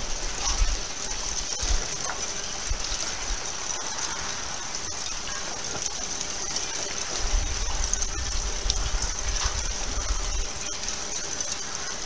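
Ice crystals in river water jingling: a steady, high, hiss-like tinkling with scattered tiny clicks. A low rumble comes in from about seven to ten seconds in.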